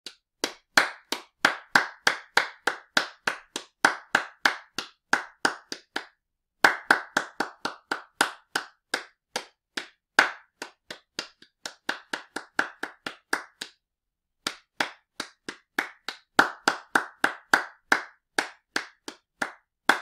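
A single pair of hands clapping at about three to four sharp, separate claps a second, in three runs broken by two short pauses.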